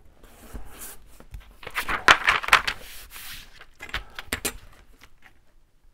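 Sheet of heavyweight tracing paper being handled and folded: crisp crackling rustles with a few sharp clicks, loudest about two seconds in.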